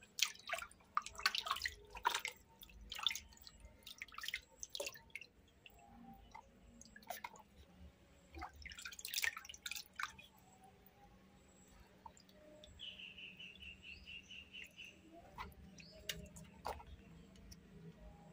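Hand-stirred water splashing and dripping in a plastic basin during a baby monkey's bath, in quick irregular splashes through the first half. A little past the middle comes a short, fast run of high chirps.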